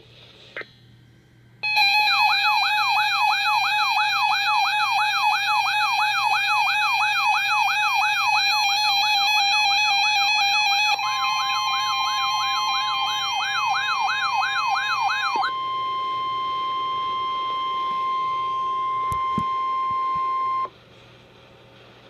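Emergency alert tones for a tornado warning. An electronic warbling siren tone sweeps up and down between two and three times a second. About halfway through, a steady single-pitch attention tone joins it, the roughly 1050 Hz alert tone of the weather warning broadcast, and carries on alone after the warble stops, then cuts off suddenly near the end.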